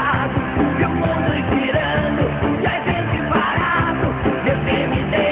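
Rock song with a male singing voice over a steady beat, played as background music.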